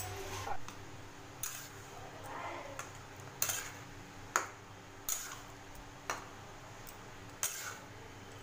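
Metal spatula clinking and scraping against a kadai while stirring thick mung dal dalma, with about six sharp clinks at irregular intervals over a faint steady hum.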